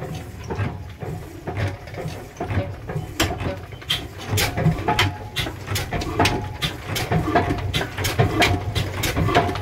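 Heavy old Ruston Hornsby single-cylinder diesel engine being started by hand, its flywheel turning over with a low rumble and a regular knocking that settles to about two or three beats a second from about three seconds in.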